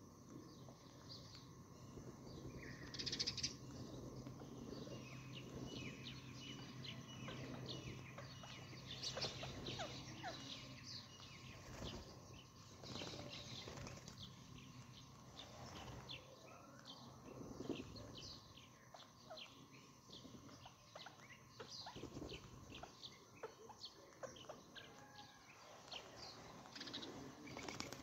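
Birds chirping and calling in many short notes, with a few louder squawks about three, nine and thirteen seconds in, over a faint steady hum.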